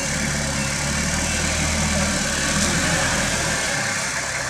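Minibus engine running steadily as the van drives slowly across a dirt yard.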